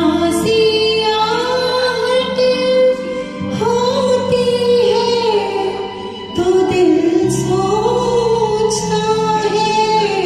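A woman singing a Hindi film song over a karaoke backing track, holding long notes with a wavering vibrato that slides between pitches.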